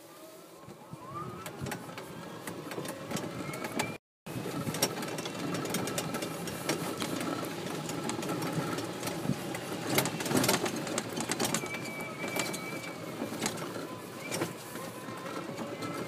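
Yamaha G29 golf cart driving over bumpy grass: the electric drive motor's whine rises as it gathers speed, with rattling and clicking from the body and windscreen throughout.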